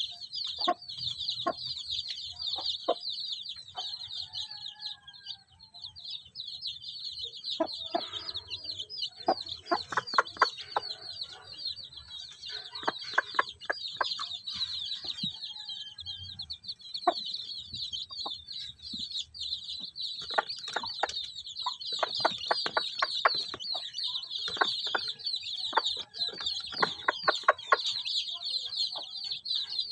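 Newly hatched native chicks peeping nonstop in a dense chorus of high chirps, with the broody hen's short low clucks scattered among them.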